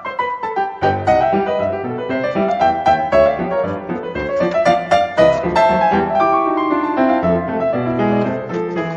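Background piano music with quick runs of notes.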